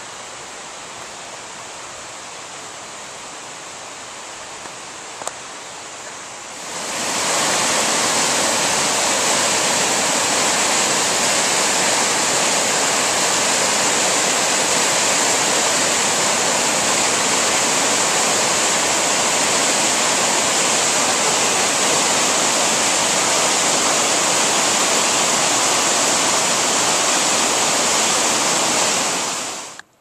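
Waterfall rushing and splashing over mossy boulders, a steady roar of falling water. It is quieter for about the first six seconds, then swells to a loud, even rush that holds until it cuts off at the very end.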